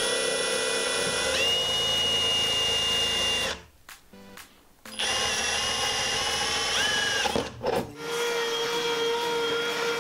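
Power drill running a bit through the sheet metal of a Mini Cooper R53's rear hatch. The motor whines steadily and stops and starts three times, and its pitch steps up partway through the first two runs.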